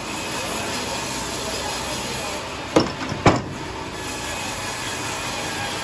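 Two sharp knocks about half a second apart, about three seconds in, as a large teak log is heaved onto the steel carriage of a sawmill, over a steady machine hum.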